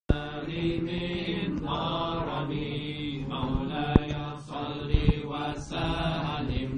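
A group of men chanting a nasheed together, unaccompanied, in long held vocal lines. A few sharp knocks sound near the middle.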